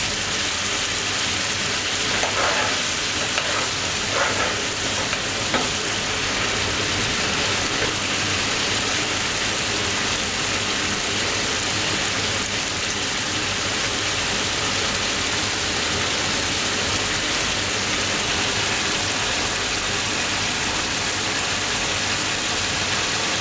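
Chicken madras curry frying in the pan with a steady sizzle, with a few scrapes of stirring in the first several seconds.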